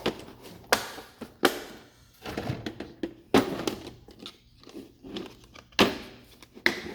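Tools and tool cases being handled in a toolbox drawer: about half a dozen irregular knocks as things are picked up and set down, with rattling and rustling between.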